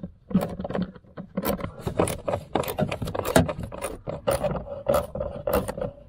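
Hand tools clinking and scraping on metal: a socket being fitted and a ratchet turning the bolts that hold an SUV's blower motor under the dashboard, in short irregular clicks.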